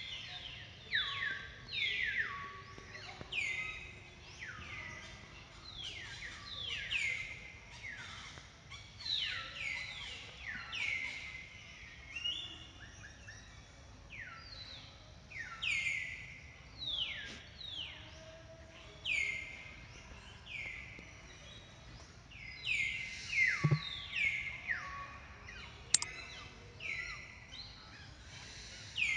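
Birds calling over one another, each call a quick high note that falls sharply in pitch, repeating about once a second. A single sharp click sounds near the end.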